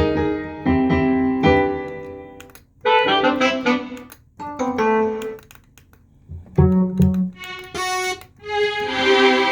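Korg X3 synthesizer playing its factory sounds: separate chords and notes, each dying away, piano-like at first. A brighter, hissier sustained chord comes in near the end.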